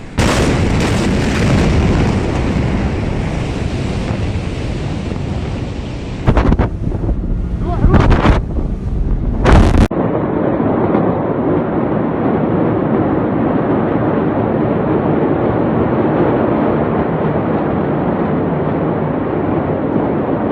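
Huge explosion recorded on phone microphones: a loud low rumbling roar, with heavy blast peaks that overload the microphone between about six and ten seconds in, then an abrupt cut to a steadier rushing roar.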